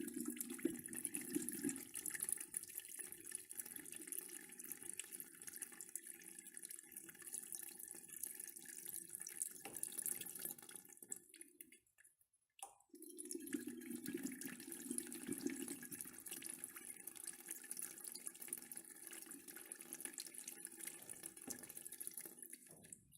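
A urinal being flushed twice: water rushes through the bowl, loudest as it starts and slowly tapering, stopping about twelve seconds in. A second flush starts straight after and runs until near the end.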